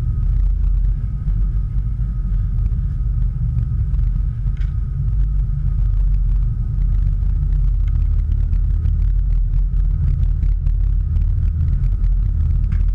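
A vessel's engines running, a steady low rumble with a faint steady whine above it.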